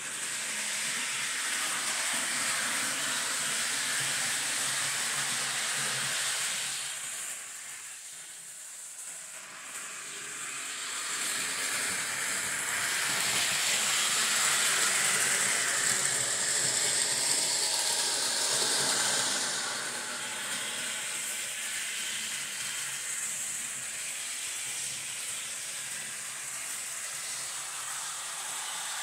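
Mantua HO-scale 2-6-6-2 articulated model steam locomotive running along the layout track under DC power: a steady rushing hiss of wheels and motor with a thin high whine. It fades for a few seconds and swells again.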